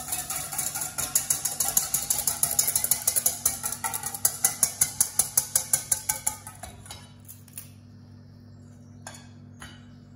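Wire whisk beating vinaigrette in a stainless steel mixing bowl: a quick, even metal clatter of about five strokes a second that stops about seven seconds in. Two light clicks follow near the end.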